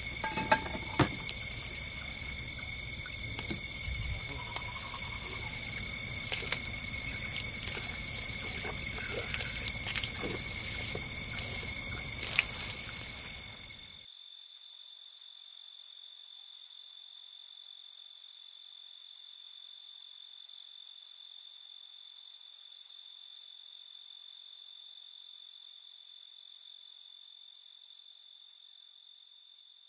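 Steady high-pitched night chorus of calling animals, with a few light clicks and knocks in the first half. About halfway through the lower background sound drops away abruptly, leaving only the chorus, which fades near the end.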